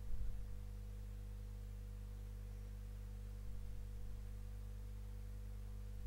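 Steady low background hum with no other activity, and a brief low thump just after the start.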